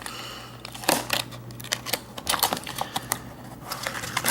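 Hard plastic blister package being pried and torn open by hand to get a padlock out: irregular sharp clicks and crackles of stiff plastic, the loudest about a second in.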